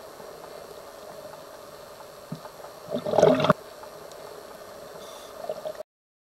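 Underwater recording: a steady hiss and hum, with one loud burst of a scuba diver's exhaled regulator bubbles about three seconds in that stops abruptly. The sound drops out to silence near the end.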